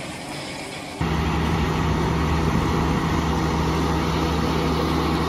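Big diesel farm tractor running steadily while it pulls a potato digger through the field. For about the first second there is quieter machinery noise, then a louder, steady engine sound with a low hum starts suddenly.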